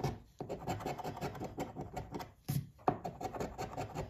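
A coin scratching the coating off a scratch-off lottery ticket in quick, rasping back-and-forth strokes, broken by a couple of short pauses.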